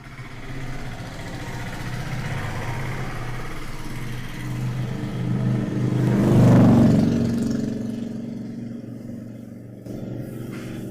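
A motor vehicle's engine passing close by, growing louder to a peak about six seconds in and then fading away.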